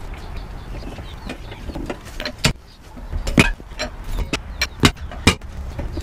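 Metal clicks and knocks of a lug wrench being handled and fitted onto a car wheel's lug nuts: a handful of sharp strikes starting about two and a half seconds in, over a steady low rumble.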